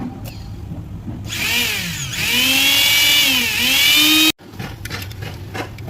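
Mixer grinder motor switched on and whining up to speed about a second in, its pitch dipping and rising a couple of times. It cuts off abruptly about three-quarters of the way through. A low steady hum sits underneath.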